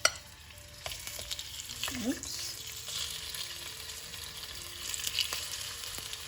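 Chicken thighs frying skin-down in hot oil in a pan: a steady sizzle with scattered sharp pops of spitting oil.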